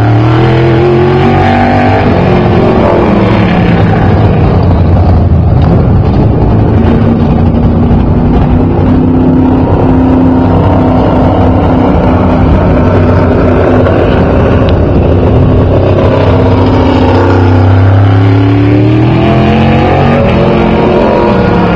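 Open-wheel modified race car's engine, very loud, as the car laps an oval alone. Its pitch falls over the first few seconds as the car runs away into the turn, holds fairly steady while it is on the far side, then climbs again in the last few seconds as it comes back around under throttle.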